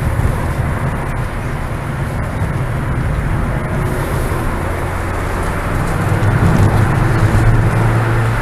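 Ford Fiesta ST engine and tyre noise heard from inside the cabin, the engine pulling louder over the last couple of seconds as the car accelerates out of a corner.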